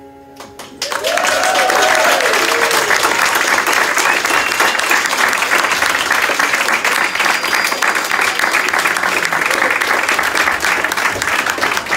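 Audience applause breaking out just under a second in as the last piano notes die away, then going on steadily, with a few voices whooping over it in the first couple of seconds.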